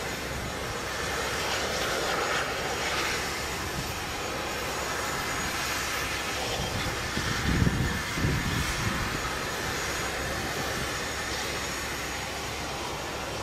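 Leonardo AW169 helicopter running on the ground during startup: its twin Pratt & Whitney Canada PW210A turboshaft engines give a steady turbine noise while the rotors turn slowly. A brief low buffeting rumble comes about halfway through, the loudest moment.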